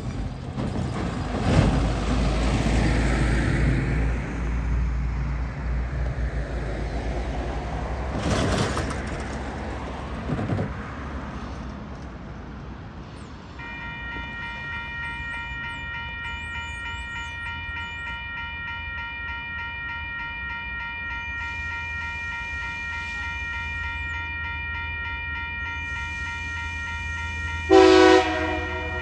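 Diesel freight train with TasRail TR-class locomotives passing: a heavy low engine rumble in the first ten seconds, then the wagons rolling by with a steady high-pitched whine from about halfway. A short, loud horn blast sounds near the end.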